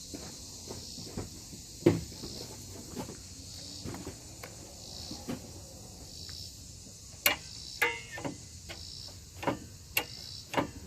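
Scattered sharp metallic clicks and clunks from the hood latch and release mechanism of a 1998 Ford F150 pickup as the release is worked, testing a newly fitted release-cable spring. Crickets chirp in soft pulses about once a second underneath.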